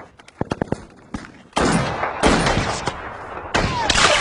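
Rifle gunfire in a mountain firefight. A quick burst of sharp shots comes about half a second in, then heavy, loud reports about a second and a half in, again past two seconds and near the end, each dying away in a long echo.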